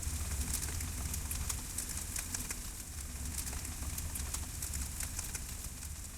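Faint scattered crackles and ticks of a noodle scorching under a red-hot metal ball, over a steady low hum.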